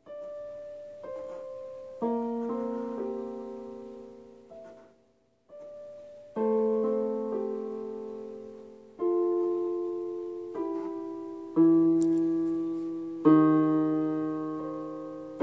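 Yamaha portable electronic keyboard played with a piano voice: a beginner's slow, simple melody of single notes and chords struck one at a time, each left to ring and fade. There is a short pause about five seconds in.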